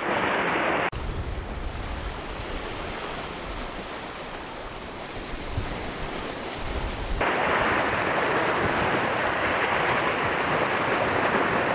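Sea surf washing over shoreline rocks, with gusts of wind on the microphone. The sound changes character abruptly about a second in and again about seven seconds in.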